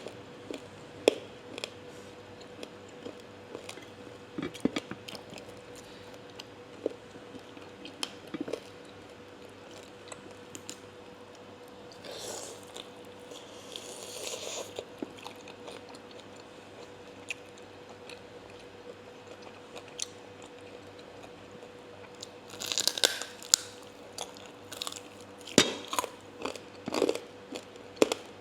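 Close-up crunching and chewing of crispy deep-fried pork leg (kaki babi goreng), with sharp crunches scattered throughout and longer, louder stretches of crunching near the middle and again near the end.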